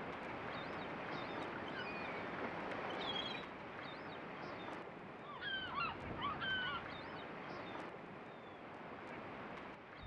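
Beach ambience: a steady rushing noise with scattered bird calls, most of them bunched together about five to seven seconds in.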